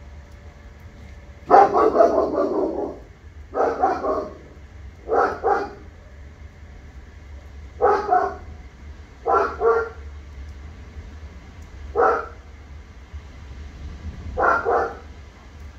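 A dog barking repeatedly in short bursts of one or two barks, with pauses of one to three seconds between them.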